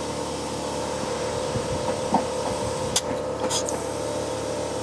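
A motor runs steadily with a constant hum. Two short, sharp hisses of compressed air come about three and three and a half seconds in, as a tire is aired up.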